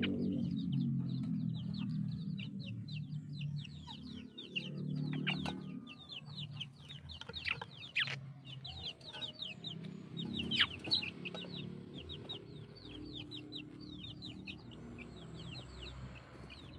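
Chickens calling: a constant stream of short, high, downward peeps, with lower clucking coming and going. There are a few sharp clicks along the way.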